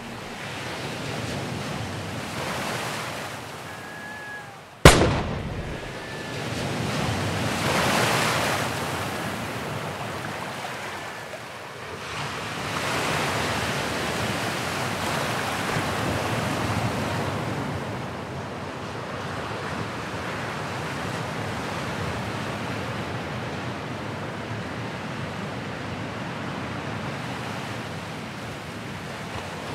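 Ocean waves surging and washing in, swelling and ebbing. About five seconds in, a single sharp bang cuts through, the loudest sound.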